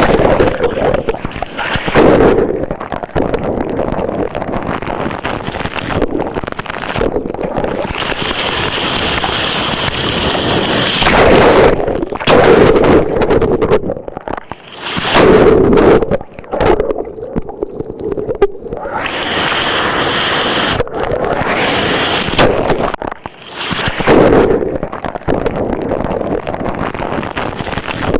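Hurricane-driven shore break: heavy surf crashing right onto the beach, several big waves landing with loud booms between stretches of rushing whitewater, with wind buffeting the microphone.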